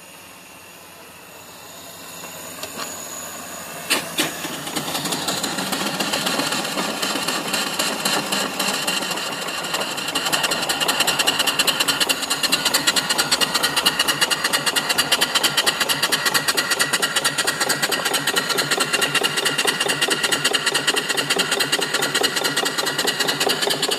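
Hand-built live-steam mill engine (3-inch bore, 4-inch stroke, flyball governor) running on steam from its boiler, its exhaust beating in a rapid, even rhythm. The beat builds over the first several seconds out of a soft steam hiss, then holds steady.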